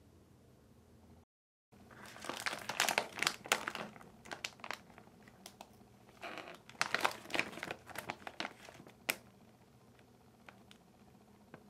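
Plastic packaging crinkling and rustling as it is handled, in two spells of crackling a few seconds long, followed by a few light clicks; typical of a Popin Cookin candy kit being unwrapped.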